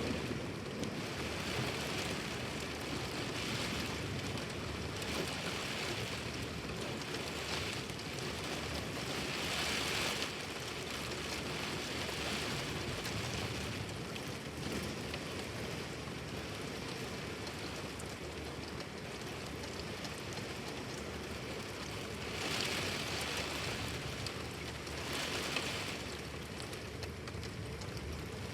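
Heavy rain falling steadily, surging and easing every few seconds.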